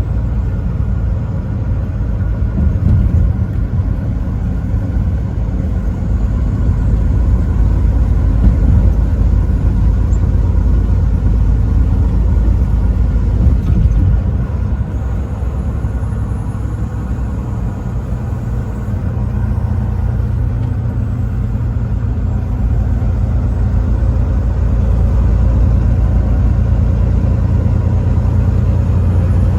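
Semi-truck running at highway speed: a steady low engine and road rumble, easing slightly for a few seconds about halfway through.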